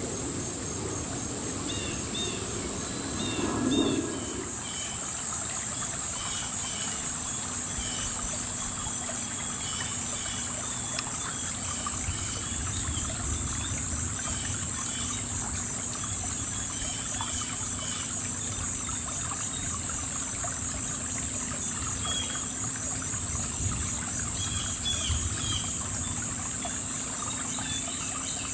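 Steady high trill of crickets, with river water trickling over stones beneath it and scattered short high chirps. A brief low rumble about four seconds in.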